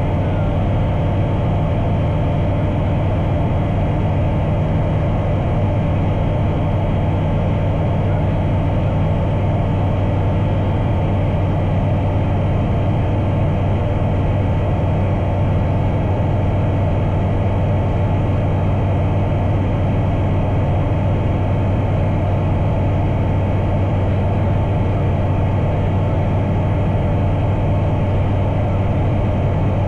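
Bristell Classic light aircraft's engine and propeller droning steadily at cruise power, a deep even hum with no change in pitch.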